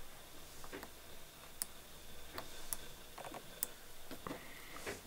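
Faint, irregular metallic clicks and ticks of a fine steel watchmaker's tool working at the escape jewel's shock spring on a Rolex 3135 movement. The movement is stopped, so this is not the watch ticking.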